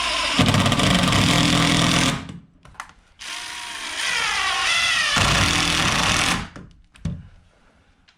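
Cordless drill/driver driving screws, in two runs of about two seconds each with a short pause between; the motor's pitch wavers during the second run. A few light clicks follow near the end.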